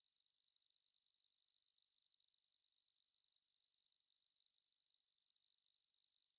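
A steady, high-pitched pure sine tone, holding one pitch and one loudness throughout: an electronic imitation of tinnitus ringing in the ears.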